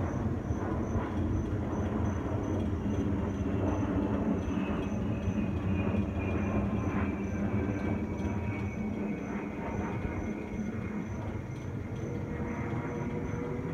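Jet engines of a twin-engine airliner passing overhead: a steady low rumble with a faint high whine that slowly falls in pitch as the aircraft moves away.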